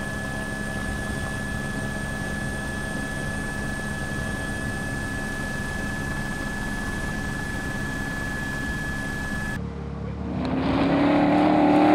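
A steady mechanical drone with a constant high whine over it, then a sudden change near the end to the louder Beast347 V8 engine accelerating, its pitch rising.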